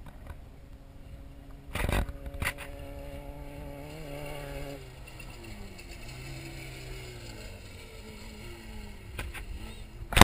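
Off-road race vehicle's engine running, its pitch holding and rising slightly, then falling steadily over the second half. Sharp knocks come about two seconds in and again near the end.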